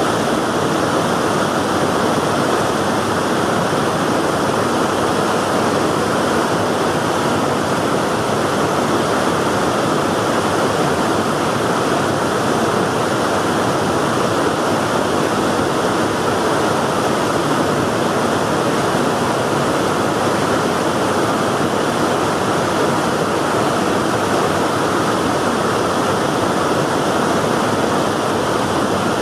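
Steady rush of river water pouring through a weir, a constant roar with no let-up.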